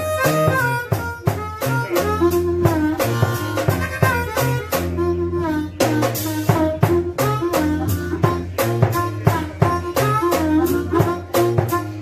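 Blues harmonica solo played with bent notes into a vocal microphone, over a drum kit and a steady low bass line.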